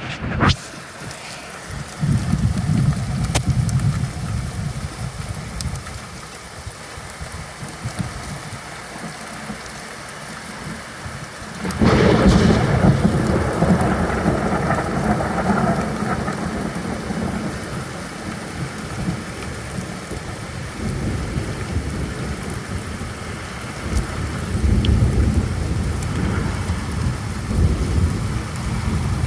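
Steady rainfall in a thunderstorm, with thunder rumbling. A rumble comes about two seconds in, a loud crash of thunder breaks out near the middle and fades away slowly, and more low rumbling comes near the end.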